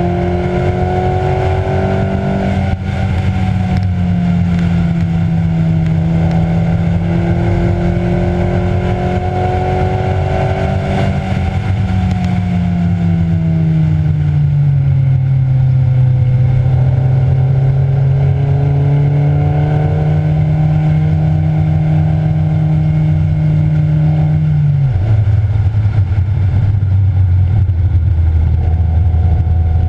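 Car engine running hard on a race track, heard from onboard over road and wind noise. Its pitch climbs slowly, falls away, holds steady, then drops abruptly at a gear change about 25 seconds in.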